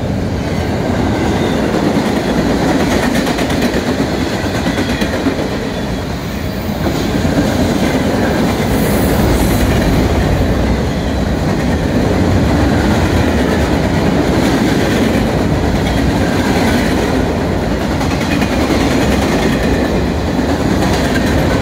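Freight train cars rolling past close by: loud, steady noise of steel wheels running on the rails under double-stack intermodal cars, boxcars and a covered hopper.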